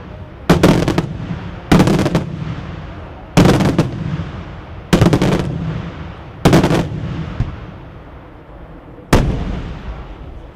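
Daytime fireworks: aerial shells bursting overhead with six loud bangs, about one every one and a half seconds and then a longer pause before the last. Some reports are double or triple cracks, and each rolls away in a rumbling echo.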